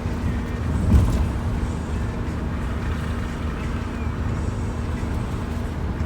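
Steady low rumble of a road vehicle running, with a faint steady hum and a single thump about a second in.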